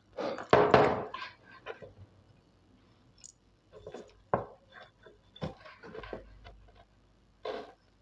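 Hands handling and fitting the parts of an LED bulb: a scraping rustle about half a second in, then scattered clicks and light knocks.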